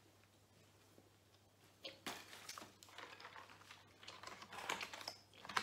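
Quiet room tone for about two seconds, then irregular clicks, taps and rustles as a cardboard Kinder advent calendar box is picked up and handled.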